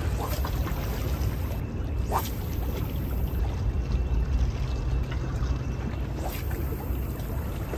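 Wind rumbling on the microphone, with small waves lapping and splashing against shoreline rocks in brief bursts.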